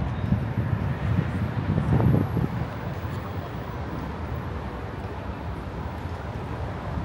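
Outdoor street ambience of traffic on a busy boulevard, with wind buffeting the microphone in low gusts that are strongest in the first couple of seconds before settling to a steady rumble.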